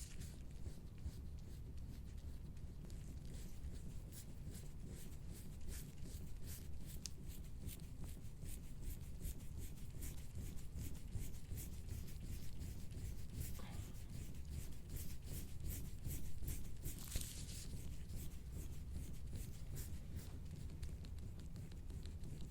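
Soft-tissue scraping tool dragged over a patient's skin in quick, repeated short strokes, each a brief dry scrape.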